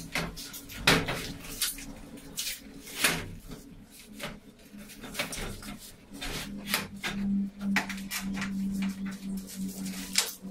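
Glass sliding door panel in its aluminium frame clanking and rattling as it is handled and fitted into the pocket-door opening: a run of sharp knocks and clicks, the loudest about one and three seconds in. A steady low hum comes in about six and a half seconds in.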